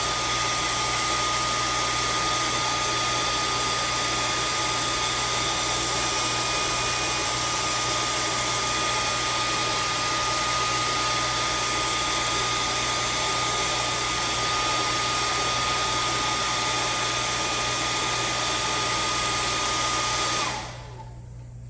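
A 1200-watt hair dryer running steadily, blowing hot air to shrink heat-shrink tubing onto a crimped copper cable lug, with a steady whine over the rush of air. It is switched off near the end and the whine falls away.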